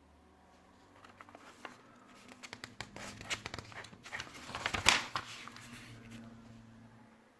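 Packaging being handled: a run of small clicks and crinkling rustles that builds to a loud scrape about five seconds in, then dies away.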